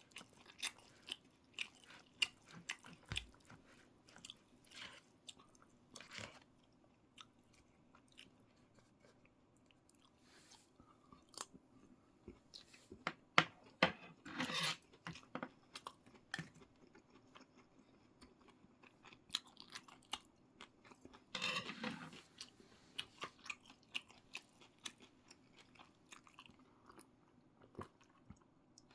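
A person chewing food close to the microphone: irregular small mouth clicks and smacks, with two louder, longer bursts of eating noise, one about halfway and another about three-quarters of the way through.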